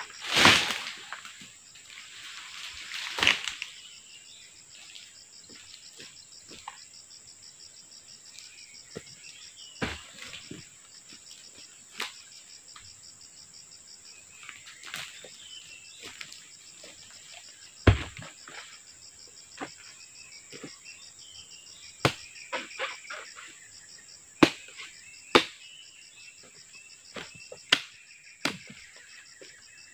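Oil palm fronds being dragged and dropped, two loud rustling crashes in the first few seconds, followed by scattered sharp knocks of a blade chopping fronds and trimming the stalks of fresh fruit bunches. A steady high insect drone runs underneath.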